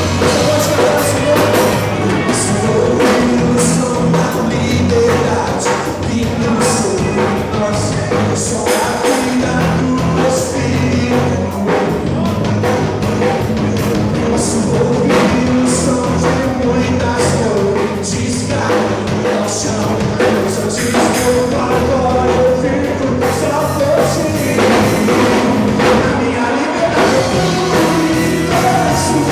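Live Christian rock band playing a song: drum kit, guitar and sung vocals, steady and loud throughout.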